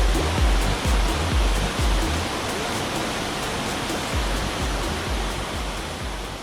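Steady rush of a waterfall under background music with a regular deep beat; the beat drops out for a couple of seconds midway and returns, and the sound fades near the end.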